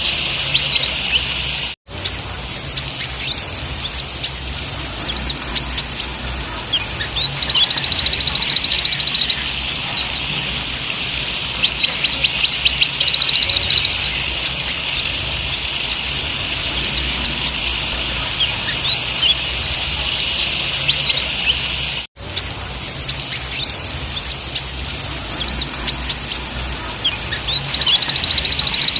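Kolibri ninja (konin) sunbird singing: quick high chirps and several stretches of very rapid, buzzy trilling lasting a second or more, over a steady high hiss. The sound cuts out for an instant twice, where the recording loops.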